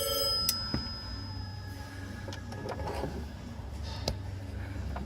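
Light clicks and scrapes of a bolt and tool being positioned by hand, over a low steady hum. A faint high steady tone fades out within the first second or two.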